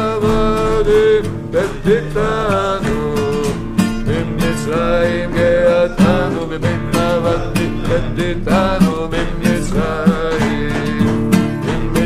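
Acoustic guitar strummed in a steady rhythm while men sing a song together.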